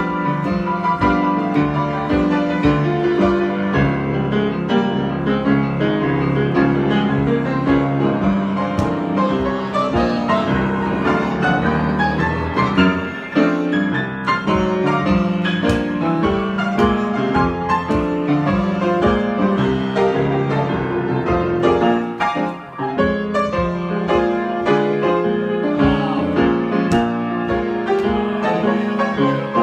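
Piano improvisation: a continuous, dense flow of notes.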